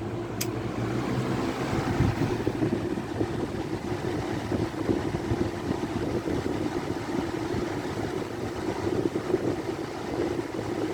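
Two Lakewood box fans running together on medium speed: a steady rush of air over a low motor hum. A single sharp click about half a second in.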